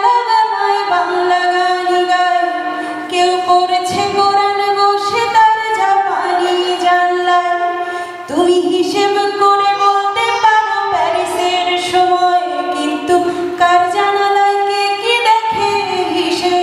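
A woman singing into a microphone in long held notes that glide from one pitch to the next.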